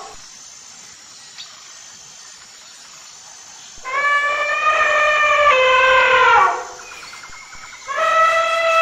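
Elephant trumpeting: a long, loud, brassy call starting about four seconds in that drops in pitch as it ends, then a second call starting near the end.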